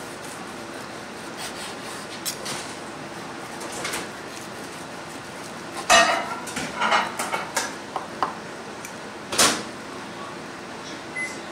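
Kitchen knife and fork cutting a steak on a wooden cutting board: scattered clicks and scrapes of the blade and fork on the board, with a cluster of knocks about six seconds in and another sharp knock about nine seconds in, over a steady hiss.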